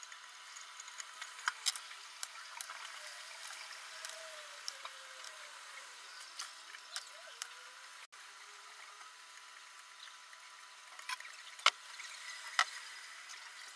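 Scattered small metallic clicks and taps as screws are handled and turned by hand into machined metal cylinder blocks through the frame plates. Two sharper clicks come near the end.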